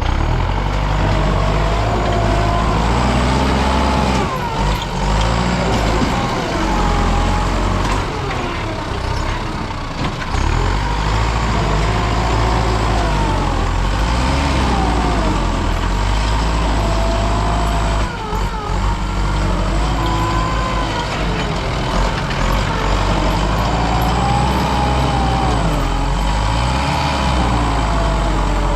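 Excavator's diesel engine running under load, with a hydraulic whine that rises and falls as the machine works.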